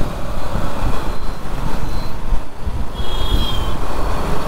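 Riding in road traffic, with a dense low rumble of wind on the microphone and vehicle noise. Faint brief high tones come through about a second in and again around three seconds in.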